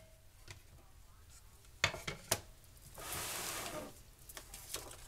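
Kitchen handling noises: a few light clicks and knocks about two seconds in and again near the end, with a hissing rustle lasting about a second in between.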